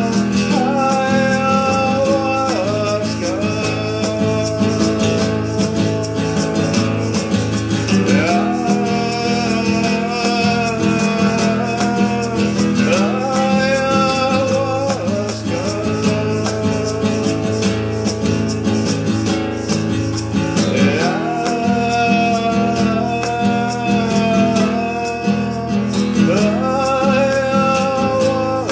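A man singing long held notes, each phrase sliding up into its note, over a steadily strummed acoustic guitar.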